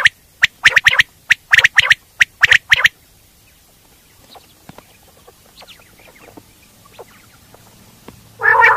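Coturnix quail calling: quick clusters of short, sharp notes for about three seconds, then a few faint chirps, then another loud call near the end.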